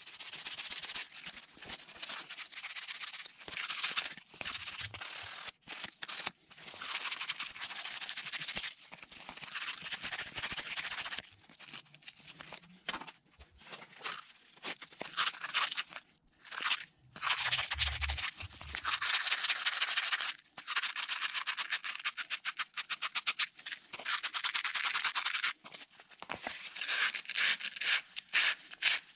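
Sandpaper rubbing on a wooden crank handle by hand: quick back-and-forth scratchy strokes in runs of a few seconds, broken by short pauses.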